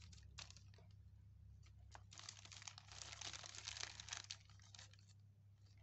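Faint crinkling of a clear plastic bag handled by hands, with a few scattered crackles at first and a denser stretch of crinkling from about two to four and a half seconds in.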